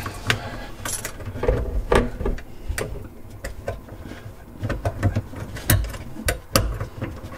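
Irregular clicks and light knocks of small metal parts being handled: the spring clip of a pop-up sink drain being worked back onto the drain's lift rod.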